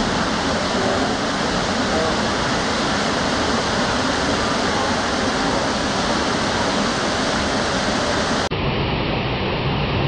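Waterfall crashing onto rock, a steady, even rushing of water. About eight and a half seconds in there is a brief dropout where the recording cuts to another shot of the falls.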